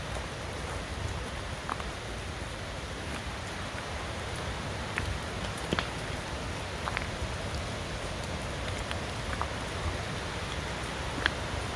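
Steady drizzle hissing, with scattered single raindrops ticking sharply close to the microphone.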